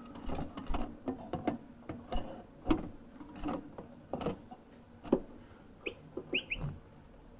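A young European goldfinch moving about its wire cage: an irregular string of sharp clicks and taps, with a few short high chirps about six seconds in.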